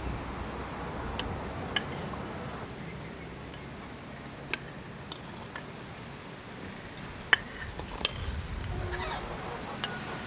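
Metal spoons clinking a few times against a ceramic bowl as small mung-bean balls are dipped and turned in beaten egg yolk, over a steady background hiss.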